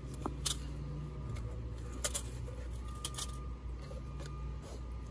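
A few light, sharp metallic clicks and taps of the band clamps on a rubber pipe coupling being handled as it is fitted over a pipe, over a steady low hum.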